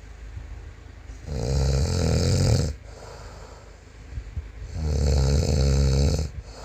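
A man snoring loudly: two long snores, each about a second and a half, roughly three and a half seconds apart, with quieter breathing between them.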